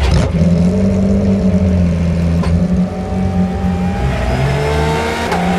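Porsche 911 GT3 R rennsport race car engine running, loud and sustained: its pitch holds steady, drops about three seconds in, and climbs back near the end.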